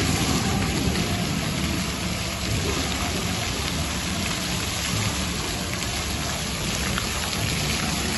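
Fountain water jets spraying up and splashing steadily back down into a shallow pool, a dense rain-like patter of falling water.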